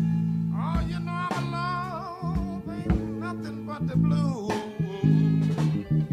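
Live blues band playing: a guitar line of bent, wavering high notes over a held bass chord and a few drum hits.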